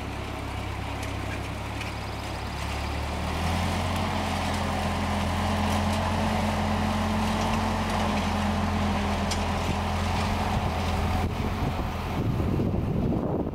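1946 Ford 2N tractor's four-cylinder flathead engine running steadily as the tractor drives past, on a freshly replaced head gasket. It grows louder about three seconds in as the tractor comes nearer, and its note drops away near the end as it leaves.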